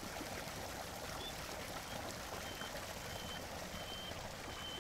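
Steady, soft rush of flowing water, a stream or waterfall. From about a second in, short high thin notes repeat every half second or so.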